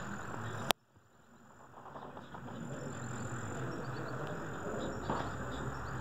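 Crickets trilling steadily in the background, a thin high tone over faint outdoor noise. Under a second in there is a sharp click, the sound cuts out to near silence, then fades back in over about two seconds.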